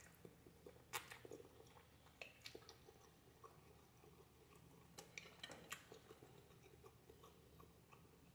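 Faint chewing and wet mouth clicks of someone eating spaghetti with sausage, in scattered small bursts, the loudest about a second in.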